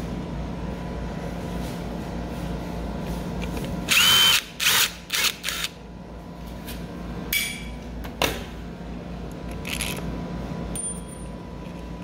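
Cordless drill-driver backing out a wall switch's mounting screws. It gives one loud run of rising motor whine about four seconds in, then several short runs over the next few seconds.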